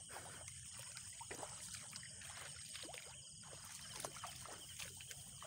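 Faint, irregular sloshing and squelching of feet wading through the mud and water of a flooded rice paddy.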